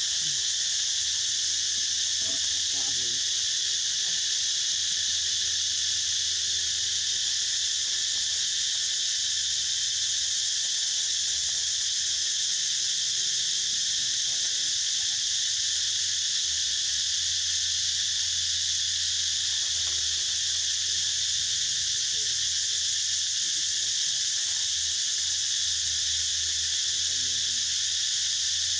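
A steady chorus of insects: a loud, continuous high buzz that holds without a break.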